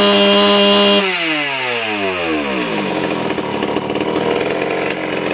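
Jonsered 49SP two-stroke chainsaw held at full revs, then the throttle is released about a second in and the engine falls smoothly over about two seconds to a lumpy idle.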